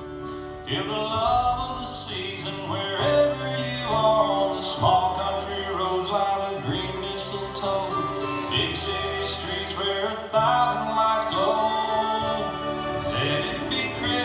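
Recorded country-style Christmas song playing over speakers: a male singer with guitar and band backing.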